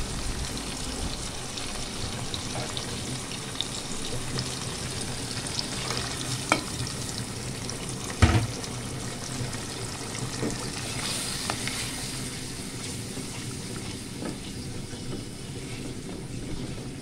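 Ground spice paste frying in hot oil in an aluminium pot, a steady sizzle and bubble, the spice-frying stage of a beef curry before the meat goes in. There are a few knocks, the loudest about eight seconds in, and a spatula stirs the paste near the end.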